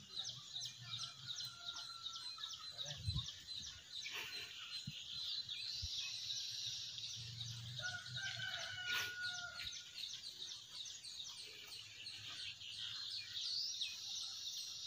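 Farmyard birds: a small bird chirping quickly and repeatedly, with a rooster crowing once about eight seconds in.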